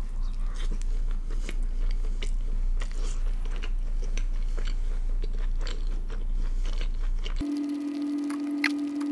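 Close-miked biting and chewing of a mouthful of butter naan, with many small wet clicks and crackles from the mouth. The naan is very chewy. A steady low hum runs under it, and near the end a steady humming tone comes in.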